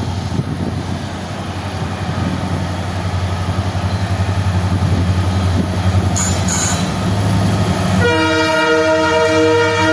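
WDP-4D diesel locomotive's EMD 16-cylinder two-stroke engine humming with a steady low drone, slowly growing louder as it nears. Two brief hisses come about six seconds in. About eight seconds in, the locomotive's multi-tone horn starts a long blast.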